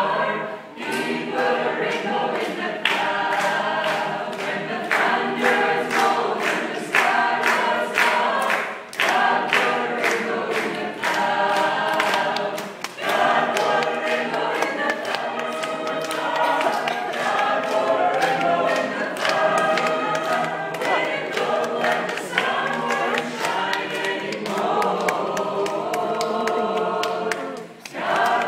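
Mixed choir of men's and women's voices singing a cappella, pausing briefly between phrases.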